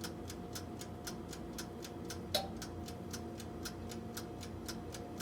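Toaster oven's mechanical dial timer ticking evenly, about three to four ticks a second, over a faint steady hum, with one louder click about two and a half seconds in.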